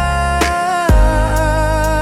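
Slow R&B song: a long held sung note that slides down in pitch about a second in, over a steady drum beat and bass.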